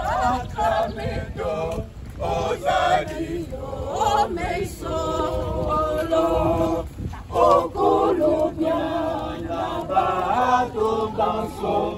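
A crowd of walkers singing a hymn together without instruments, men's voices to the fore, with held notes and short breaks between phrases.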